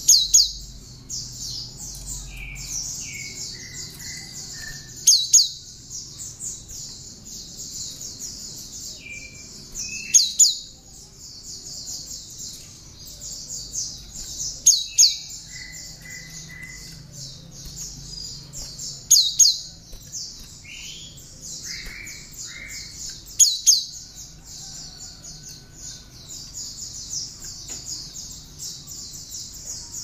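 Cinereous tit (gelatik batu) singing a continuous fast, high chatter filled with bar-winged prinia (ciblek) phrases. Six loud, sharp double notes break in, one every four to five seconds, with short lower whistled notes between them.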